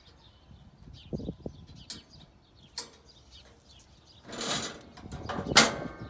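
A roll of netwrap being pushed along and seated in a round baler's net-wrap holder: a few light knocks, then two longer scraping rushes about four and five and a half seconds in, the second the loudest.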